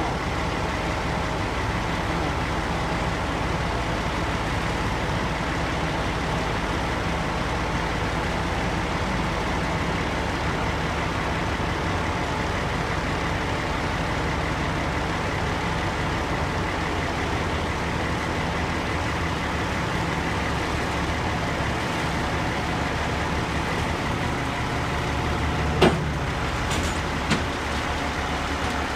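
Heavy diesel engine of a rubber-tyred skidder running steadily as it drives up onto a lowboy trailer, with two sharp knocks near the end.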